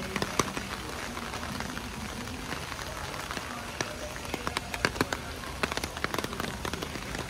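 Steady rain falling, a continuous hiss, with many sharp drops tapping close by that come thickest in the second half.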